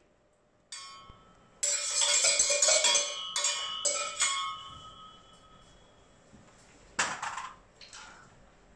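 A spoon rattling and clanking in a stainless-steel mixing bowl, the bowl ringing with each knock, busiest in the first few seconds and then dying away. About seven seconds in, a single sharp smack, like a hand clap.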